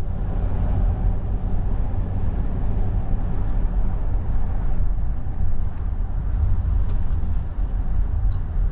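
A car driving: steady low rumble of engine and road noise.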